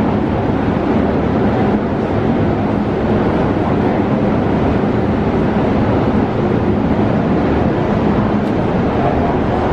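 MTR Tsuen Wan Line metro train running, heard from inside the car as a loud, steady rumble of wheels and motors.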